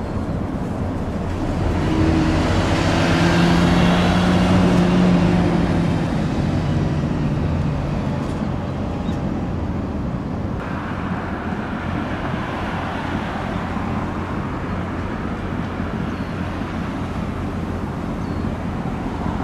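Steady low rumble of engines and traffic by the water. A motor vehicle passes close about two seconds in, its engine hum swelling and then fading away by about seven seconds.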